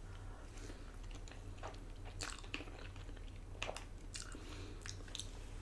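Quiet chewing of a mouthful of food, with scattered soft wet mouth clicks.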